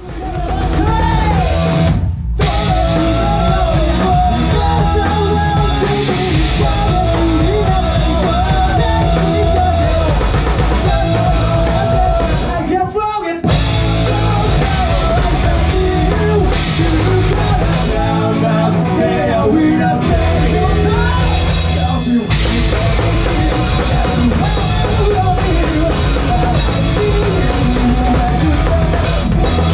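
Rock band playing live: drum kit, electric guitar and sung vocals together, with a brief stop about two seconds in and another short break around thirteen seconds.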